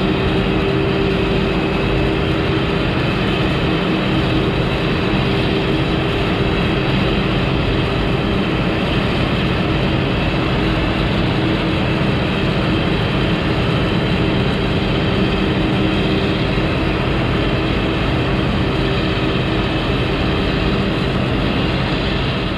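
Heavy farm machinery running steadily at work chopping maize, a constant engine sound with a steady hum.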